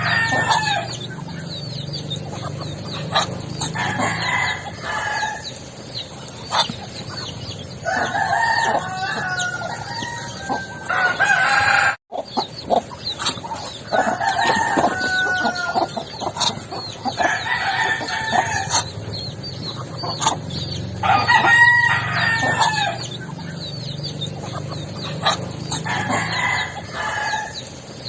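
Backyard roosters crowing again and again, a drawn-out call every few seconds, with chickens clucking between crows. The sound drops out for an instant a little before halfway.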